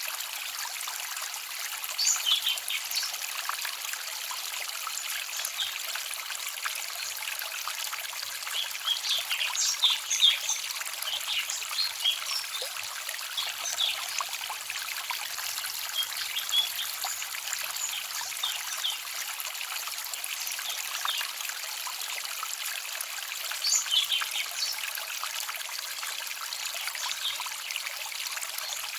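Small forest stream trickling and babbling steadily. A few brief spells of brighter, higher sounds rise over the water: near the start, around the middle and again toward the end.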